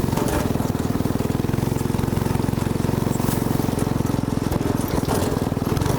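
Small go-kart engine running at a steady speed, a fast, even putter.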